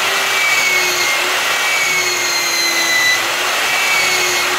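Cordless drill running steadily, spinning a sandpaper-wrapped split iron rod against the inside of a revolver barrel's rear end to polish the forcing cone. A continuous whir of motor and abrasive with a faint whine that wavers slightly in pitch.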